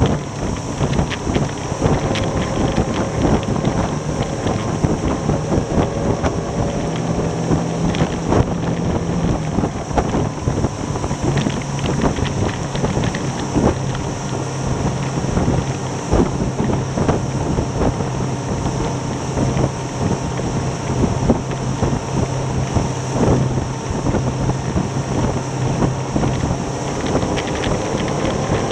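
Rigid inflatable boat's outboard motor running at speed. Its note drops a little about eleven seconds in as the boat slows from about 29 to 25 mph. Wind buffets the microphone, and the hull knocks repeatedly on the chop.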